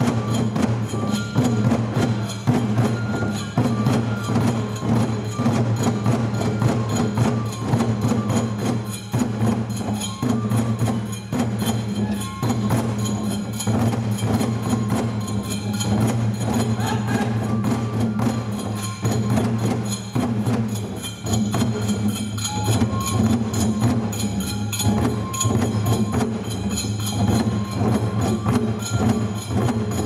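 Japanese folk-dance accompaniment music with a fast, dense, even clicking of wooden percussion and short held higher notes over a steady low bed.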